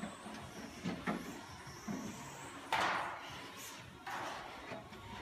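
A 1/12-scale electric RC pan car (VBC Lightning 12M, 21.5-turn brushless motor on a 2S 7.4 V LiPo) running laps: a faint high motor whine that rises and falls with the throttle. Several sharp knocks and clatters come through it, the loudest about three seconds in.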